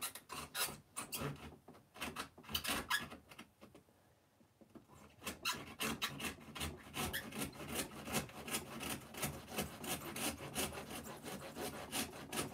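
A hand-held knife blade sawing back and forth through the foam and wood edge of a model railroad layout, in quick rasping strokes with a short pause about four seconds in.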